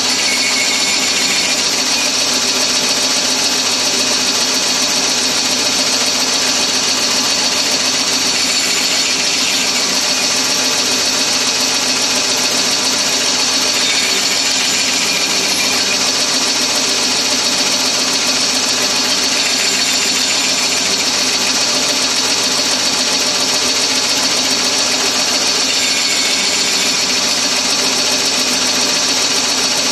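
Bandsaw running steadily while its blade cuts angled segments off a pine strip on a sled, several cuts a few seconds apart.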